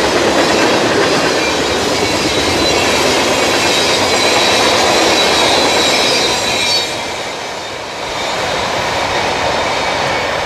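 Freight train cars rolling past close by: a steady rumble of wheels on rail with a faint high wheel squeal over it. The squeal stops and the sound drops a little about seven seconds in.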